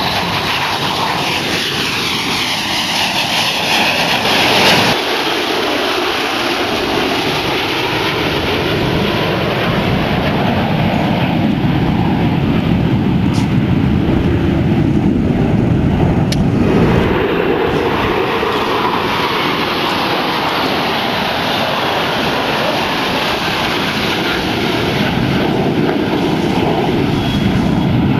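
Military jet aircraft engines running loud as jets climb out and pass overhead in formation. The noise changes abruptly twice, about five and seventeen seconds in.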